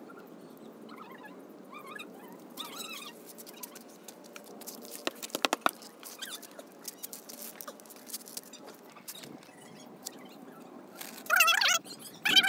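A thin stick scraping and picking through a tree's root ball and loose soil, with a quick run of sharp clicks in the middle. Near the end come a few loud, squeaky chirps from an animal.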